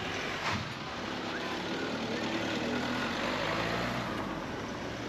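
A motor vehicle's engine running steadily under a constant outdoor hiss.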